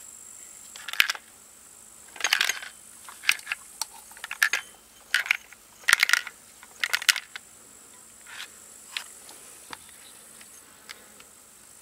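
A small part dropped inside a stripped-down Chinese chainsaw rattling and clicking against the plastic housing as the saw body is tilted and shaken. The rattles come in quick bunches for about seven seconds, then thin out to a few faint clicks. A steady high insect chirring runs underneath.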